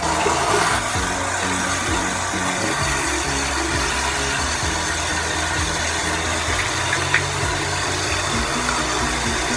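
Steady rushing noise over a low hum, starting abruptly right at the beginning.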